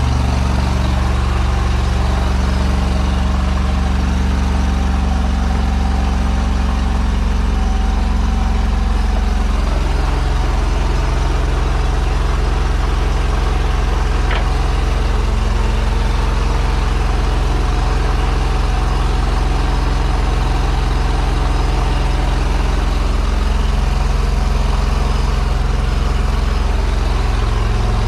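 High-pressure drain jetter's engine running steadily at a constant speed.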